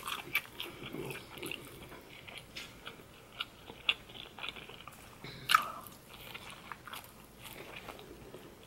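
Close-up chewing and biting of a person eating, wet mouth sounds with scattered crunches and small clicks, and one sharper click about five and a half seconds in.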